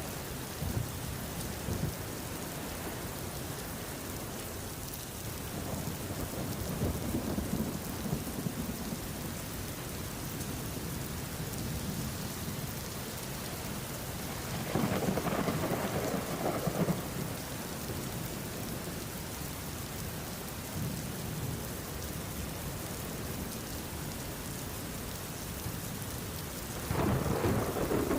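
Steady rain with rolls of thunder: a low rumble swells about six seconds in, a louder roll comes about fifteen seconds in, and another begins near the end.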